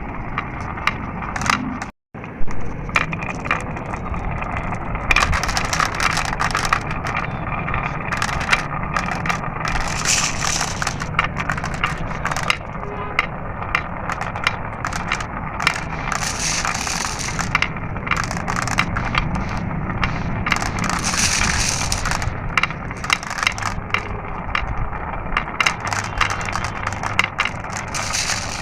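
Glass marbles rolling down a marble run, a steady rolling rumble under constant clicking and clacking as they knock against each other and the track. The sound cuts out for an instant about two seconds in.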